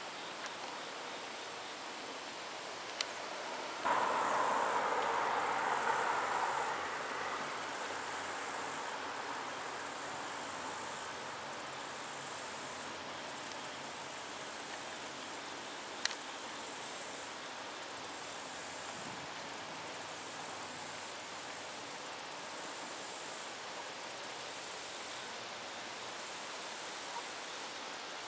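Insects chirping in a high-pitched pulsing chorus, about one pulse a second, starting about four seconds in. A rushing noise comes in with it and fades over the next few seconds.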